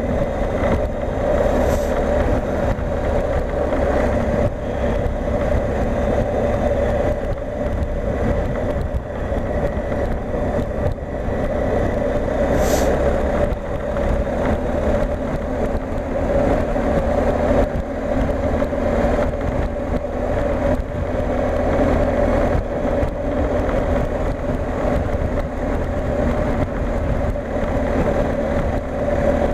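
BMW R 1250 GSA's boxer-twin engine running steadily as the motorcycle rides along at an even pace.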